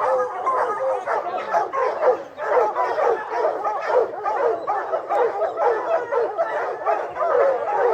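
A pack of bear hounds baying together, many overlapping drawn-out calls without a break.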